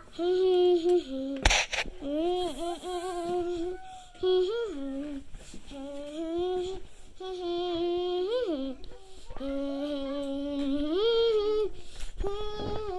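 A high voice humming a wordless tune in held notes of about a second each, with small slides up and down in pitch. A single sharp knock comes about a second and a half in.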